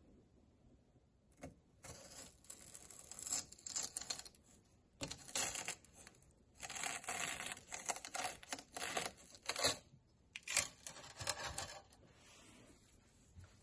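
Kitchen knife slicing lengthwise through a raw Chinese yam (nagaimo) on a stainless steel tray: a run of crisp, scraping cutting strokes after a single click, stopping near the end.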